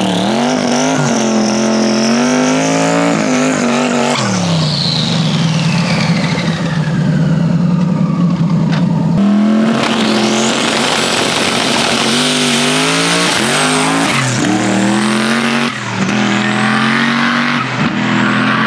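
Stick-shift drag race car engine running hard at high revs, its pitch rising and dropping several times as it accelerates and shifts, with loud rushing noise and a high whistle over it.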